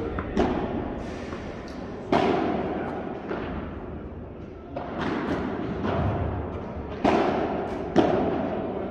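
Padel balls being struck and bouncing off rackets, floor and glass on nearby courts: several sharp knocks a second or two apart, each ringing on in the echo of a large hall.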